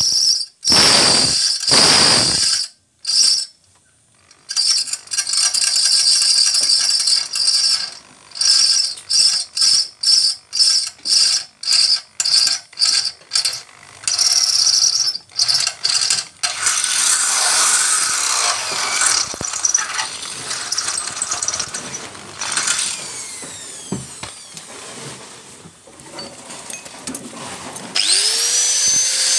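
Hand-held electric drill boring into a steel frame to enlarge a hole, run in many short bursts of the trigger, then more continuously as it cuts through. Near the end a motor spins up and settles into a steady whine.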